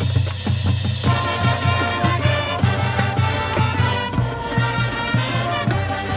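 Marching band playing: a low held bass line under a steady drum beat, with the brass and woodwind parts coming in about a second in.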